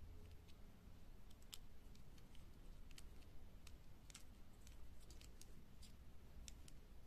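Small plastic Kinder Surprise toy parts being handled and fitted together by hand: faint, irregular, sharp little plastic clicks.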